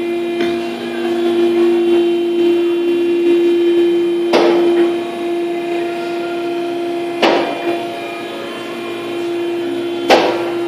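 Hydraulic car lift raising a 1954 Chevrolet, its pump motor whining steadily at one pitch, with three sharp clacks about three seconds apart as it climbs.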